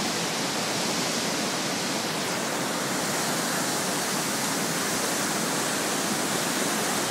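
Swollen mountain river running in spate through whitewater rapids: a steady, unbroken rush of water.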